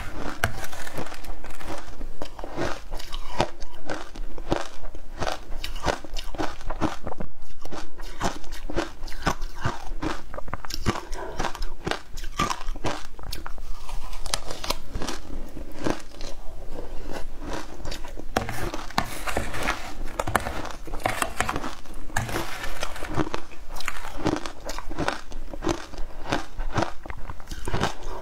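Shaved ice mixed with matcha and milk powder being crunched and chewed, with a metal spoon scraping and stirring the ice in a plastic tub: a continuous run of crisp, crackling crunches.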